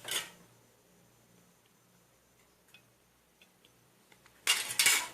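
Handling noises from crafting: a short rustling scrape at the start, a few faint ticks, then a louder burst of quick rustling scrapes near the end.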